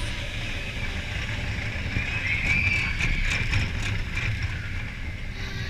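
Expedition Everest roller coaster train rumbling along its track, with wind rushing over the camera microphone and a brief spell of rattling about three seconds in.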